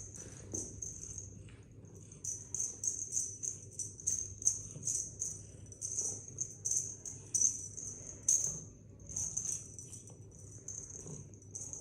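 Small metal jingle bells shaken in quick repeated bursts, about two to three a second, with a couple of short pauses.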